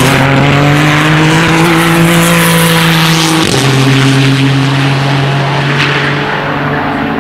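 Nismo Nissan GT-R GT3 race car's twin-turbo V6 accelerating hard, with one upshift about three and a half seconds in where the engine note drops, then pulling again and fading a little near the end as the car draws away.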